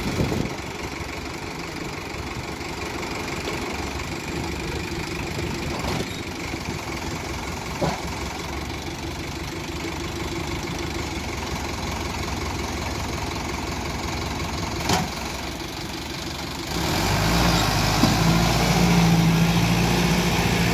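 Sonalika tractor's diesel engine idling with a few short, sharp knocks. About three-quarters of the way through, the engine is revved up and runs louder and steadier as the tractor pulls away with the emptied trailer.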